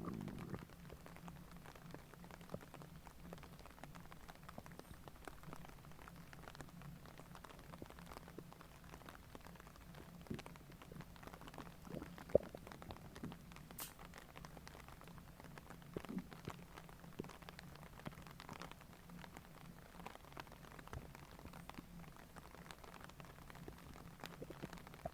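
Faint stomach gurgling: scattered small pops and bubbling clicks over a steady low hum.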